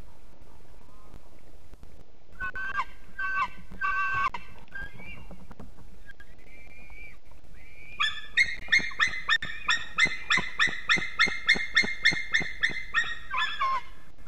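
White-tailed eagle calling at the nest: a few short yelps, then a fast, even series of about twenty high, sharp yelping notes at roughly four a second, which stops shortly before the end.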